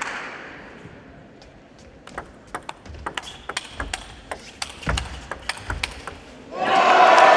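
Table tennis rally: the ball clicks sharply off the bats and table in a quick run of taps for about four seconds, with one low thud partway through. About six and a half seconds in, the crowd bursts into applause as the point ends, and this is the loudest sound.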